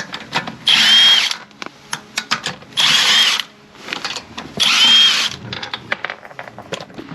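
Cordless power tool, most likely an impact wrench spinning the wheel's lug bolts, running in three short bursts about two seconds apart with a high whine, followed by light clicks and knocks of metal parts being handled.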